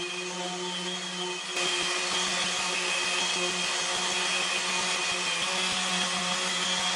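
Electric sander running steadily on dyed maple, sanding back the green dye; a steady motor hum under a gritty rasp that turns louder and rougher about a second and a half in.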